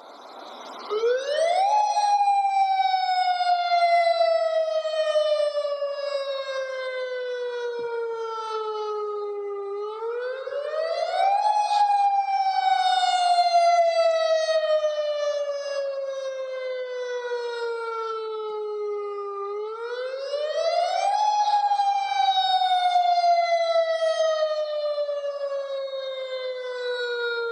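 Outdoor emergency warning siren sounding a test of a campus alert system. Its tone rises quickly, then falls slowly over about eight seconds, and repeats about every ten seconds, three times.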